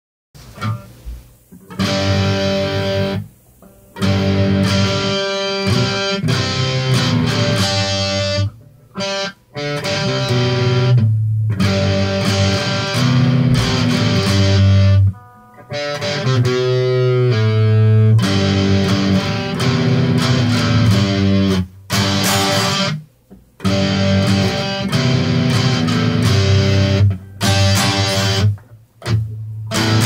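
Homemade electric baritone guitar, capoed with an ice-cream stick and rubber bands, strummed through an amplifier: full chords with a strong low end, stopped dead several times between phrases.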